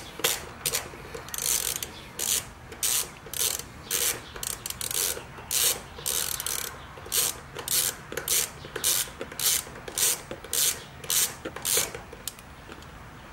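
Hand ratchet with a 10 mm socket clicking in short bursts, about two a second, as it backs off the center console nuts. The clicking stops near the end.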